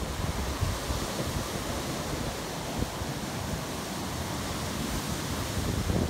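Ocean surf breaking over rocks and washing up against a seawall: a steady rushing wash, with wind rumbling on the microphone.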